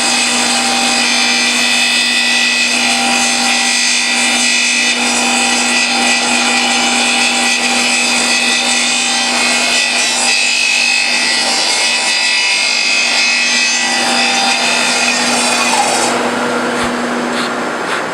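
Log lathe's kerfing saw running steadily as it cuts a kerf groove along a wooden log, a constant machine tone over the noise of the cut. About sixteen seconds in the sound changes, the higher part dropping away and leaving a rougher, noisier run.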